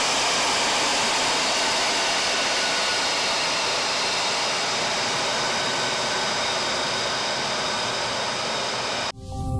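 Lockheed Martin F-35A's Pratt & Whitney F135 turbofan running as the jet taxis: a loud, steady roar with a high whine in it. It cuts off suddenly near the end.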